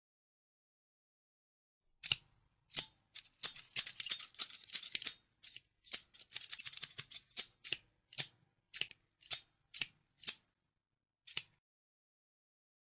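Metal scissors snipping: crisp clicks starting about two seconds in, coming in quick runs, then slowing to single snips about half a second apart before stopping near the end.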